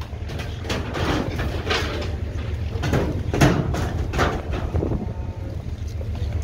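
Whole tuna being pulled by hand from a brailer net and dropped onto the deck, a string of irregular thuds and wet slaps over a steady low rumble.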